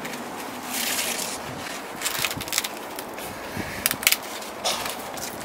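Sweetcorn leaves and husk rustling and crackling in several short bursts as a cob is harvested from the maize stalk, with a couple of sharp clicks about four seconds in.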